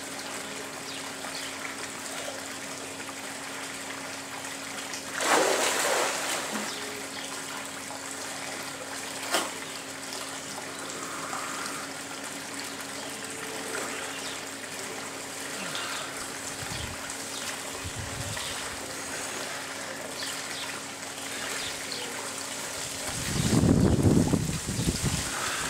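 Swimming pool water trickling and lapping steadily over a steady low hum, with a louder splash about five seconds in and louder splashing near the end as the swimmer moves through the water close by.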